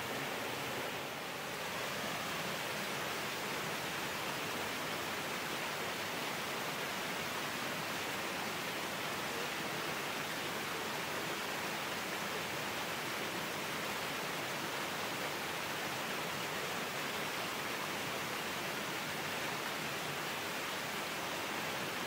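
Steady rushing of a small waterfall pouring down a rock face and over boulders into a rocky stream, with a brief dip about a second in.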